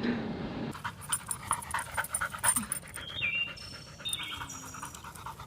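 A dog panting in quick, uneven breaths, with a few brief high-pitched tones around the middle.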